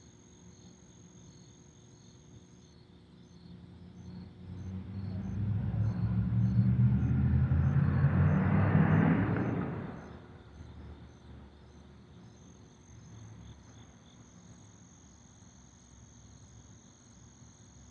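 A motor vehicle passing by, its low engine and tyre rumble swelling for several seconds and then falling away about ten seconds in. Crickets chirp steadily underneath.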